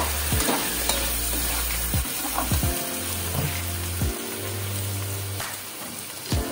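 Boiled chicken pieces sizzling steadily in hot oil in a steel pot as they are stirred with a metal slotted spoon.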